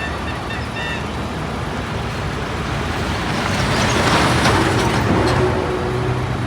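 Heavy construction trucks' engines running steadily, with a brief high-pitched beeping in the first second. A loud rushing hiss builds up about three and a half seconds in and fades near the end.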